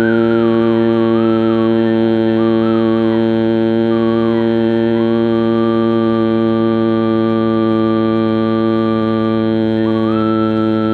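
A man humming on one steady low pitch through a long exhalation: the bee-like buzz of bhramari pranayama. A fainter, higher wavering tone sits above it.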